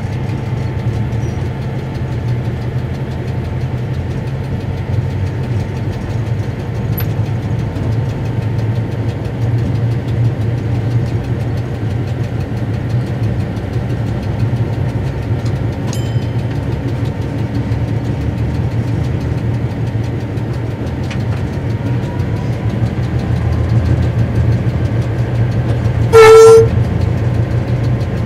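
Cab interior of a CIE A class diesel locomotive with a General Motors engine, running along the line: a steady low engine drone with running noise throughout. About 26 seconds in comes one short, loud blast on the horn, sounded as the locomotive reaches a whistle board.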